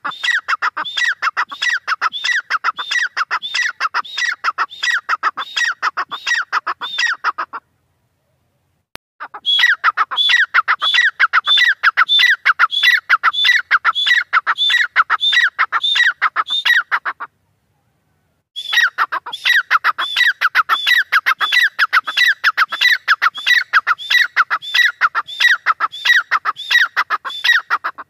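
Grey francolin calling: a loud series of sharp, repeated calls, about two a second, in three long bouts broken by two short pauses.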